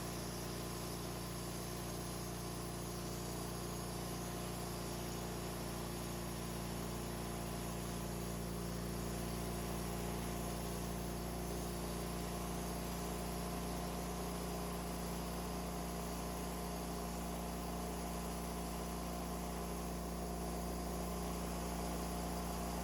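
The engine of a Wood-Mizer LT40 band sawmill running at a steady speed.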